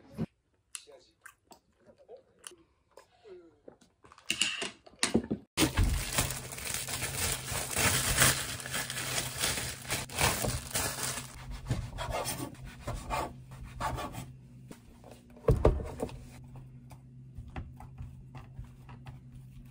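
Thin plastic bread bag crinkling and rustling as a loaf of sliced bread is handled, over a steady low hum. A thump comes about fifteen seconds in, followed by light clicks of strawberries going into a glass bowl.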